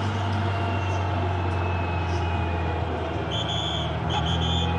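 Suzuki GSX-R1000 endurance race bike's inline-four engine running steadily at low revs while the bike rolls slowly, heard from its onboard camera. A high whistle sounds several times in short blasts near the end.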